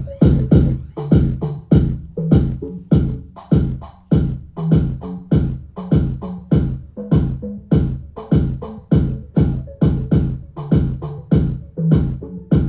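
Electronic dance music with a heavy beat, about two hits a second, played loud through a TDA7265 2.1 amplifier board driving a 6-inch subwoofer in a cabinet and two 8-inch speakers, with strong bass.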